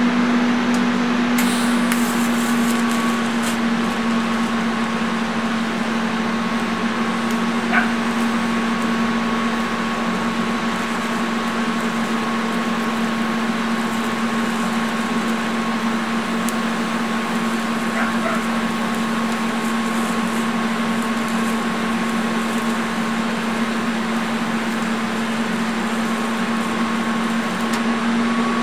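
TIG welding arc from a Lincoln TIG200 Square Wave, a steady electric buzz and hiss through one long continuous weld pass made with a 3/32-inch 2% lanthanated tungsten electrode.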